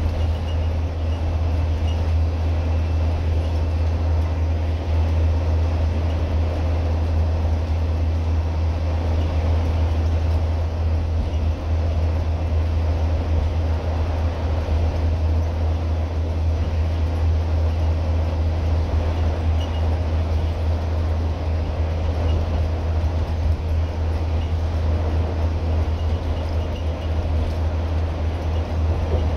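Scania N230UD double-decker bus's five-cylinder diesel engine at a steady cruise, heard from inside the passenger saloon as a steady low drone mixed with road and wind noise.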